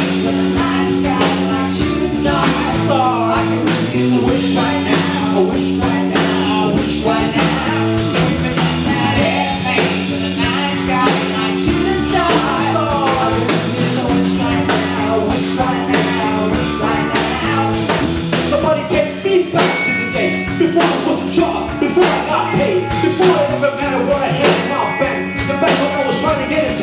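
Live rock band playing amplified through a PA: drum kit beating steadily, electric guitars and bass under held chords that change every couple of seconds.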